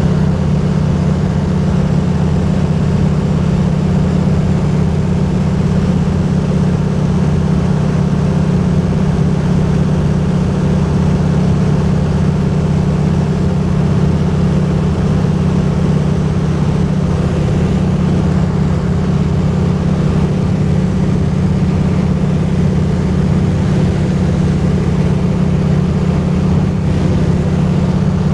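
Engine and propeller drone of a high-wing light aircraft in cruise, heard from inside the cabin: a loud, steady low drone that does not change in pitch.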